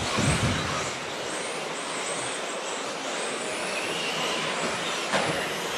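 Several 1/10-scale 2WD electric off-road RC buggies racing, their motors whining in pitches that rise and fall with throttle over a steady hiss.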